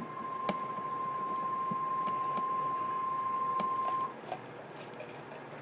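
Emergency Alert System warning tone, a single steady high tone of the kind NOAA Weather Radio sends (1050 Hz) ahead of a warning, cutting off about four seconds in. A low hiss with a few faint clicks follows.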